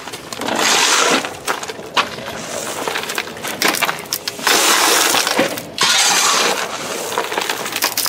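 Shovelfuls of crushed gravel being thrown into a trench, the stones rattling and clattering onto the plastic catch basin and pipe in several separate pours.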